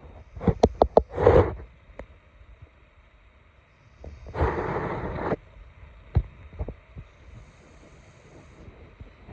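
Maine Coon cat snoring: a few short, crackly snorts in the first second or so, then one longer snoring breath about four seconds in, with a few faint clicks after it.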